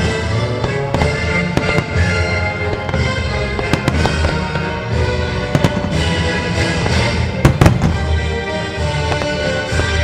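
Display fireworks banging and crackling in a steady stream of launches and bursts over the show's music, with a cluster of the loudest reports about seven and a half seconds in.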